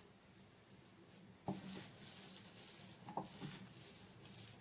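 Faint, soft squishing of a hand mashing squeezed-out, water-soaked bread in a ceramic bowl, with two brief louder moments about a second and a half and three seconds in.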